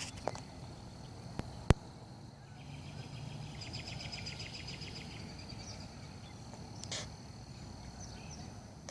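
Outdoor insect buzzing, steady and high, with a rapid pulsing trill for a few seconds in the middle. A single sharp click a little under two seconds in.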